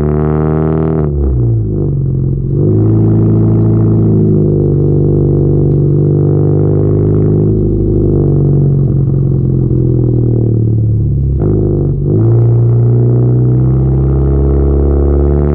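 Hyundai Genesis Coupe 2.0T turbocharged four-cylinder running through a catless ISR straight-pipe exhaust (downpipe, test pipe, O2 housing, race catback), a loud steady pitched exhaust note at the tips. The pitch dips and picks back up twice, about a second in and near twelve seconds.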